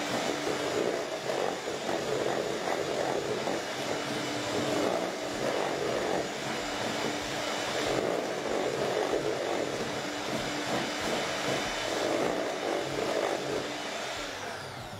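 Electric hand mixer running steadily, its beaters churning through a thick creamed butter, sugar and egg mixture in a stainless steel bowl as an egg is beaten in. The motor's steady hum eases a little near the end.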